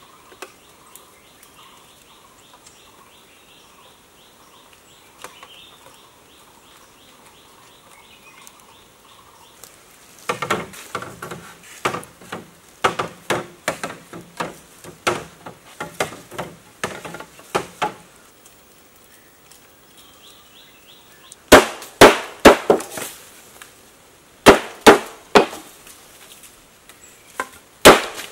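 A blade chopping into a green bamboo pole: groups of loud, sharp strikes, several a second, starting about two-thirds of the way in. Before that, a string of lighter hollow knocks as bamboo poles are handled and set against one another, after a quiet first third with a faint forest background.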